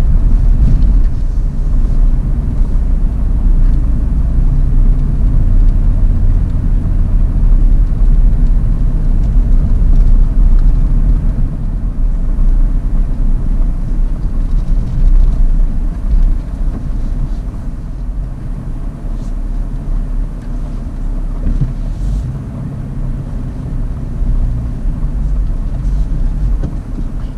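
Car driving on a paved road, heard from inside the cabin: a steady low rumble of tyres and engine, dropping somewhat about two-thirds through.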